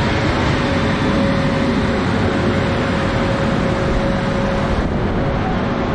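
Steady, loud rumble of an electric locomotive and train alongside, with a constant whine that drops out briefly about five seconds in.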